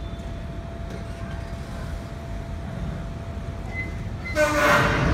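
A steady low outdoor rumble with a faint steady tone, then, a little over four seconds in, a loud pitched horn blast that runs on to the end.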